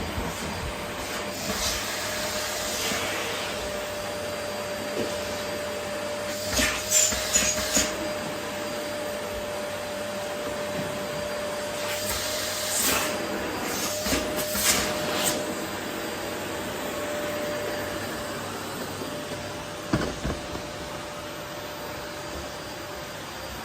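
Vacuum cleaner running steadily while it picks up rose petals, its motor holding one steady whine. A few short louder rushes of noise come about 7, 13 and 15 seconds in, and a brief knock comes near 20 seconds.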